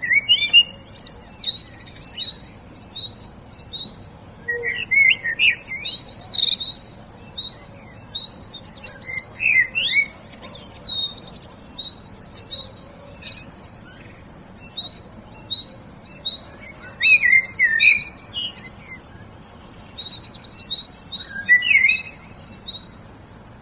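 Songbirds singing: one repeats a short high note about twice a second, while others add bursts of chirps and fast trills over it.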